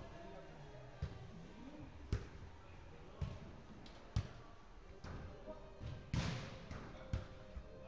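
Football being kicked on artificial turf in an indoor hall: sharp knocks about once a second, the loudest and longest about six seconds in, over faint players' voices.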